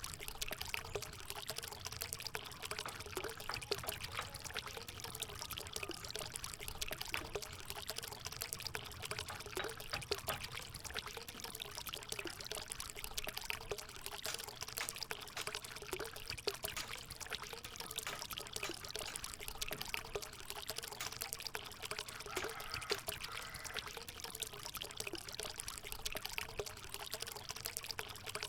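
Bamboo water fountain running: water pouring steadily from the bamboo spout with a continuous trickling splash.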